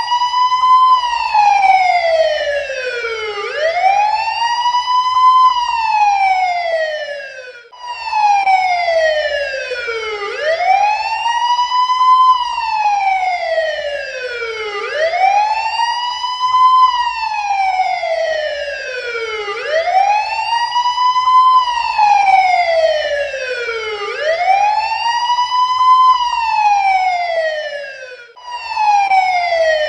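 Police car siren on wail: each cycle rises to a high peak in about a second and a half, then falls more slowly, repeating roughly every four and a half seconds. It cuts out briefly twice, where the looped recording restarts.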